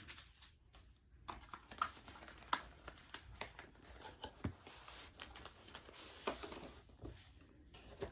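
Soft handling noises of a camera's retail box and packaging being opened by hand: scattered small clicks, taps and rustles.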